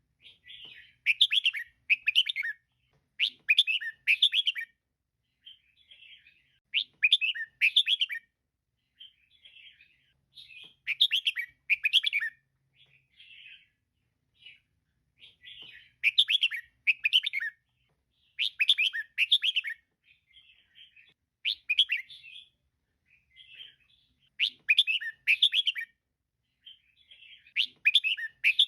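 Female red-whiskered bulbul calling: quick bright chirping phrases that come in loud bunches of a second or two every few seconds, with softer single notes in between.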